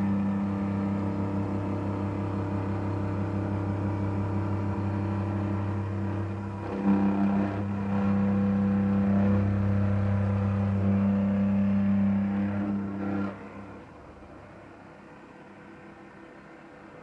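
Optimum BF46 CNC milling machine cutting steel with an end mill under flood coolant: a steady spindle and motor hum with cutting noise, louder from about seven seconds in. About thirteen seconds in it drops suddenly to a much fainter hum.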